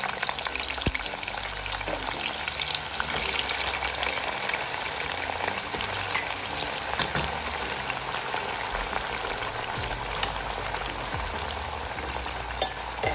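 Raw sweet potato sticks deep-frying in a pot of hot oil: a steady, dense crackling sizzle from a freshly added batch. A single sharp click near the end.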